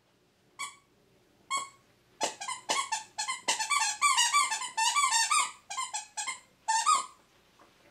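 A dog's squeaky toy squeaking over and over as it is chewed: two single squeaks, then a quick run of squeaks lasting about five seconds.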